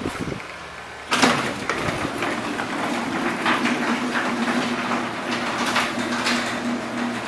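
Old Allister Type IIA garage door opener starting up about a second in and then running steadily: a constant motor hum with the door and drive rattling along.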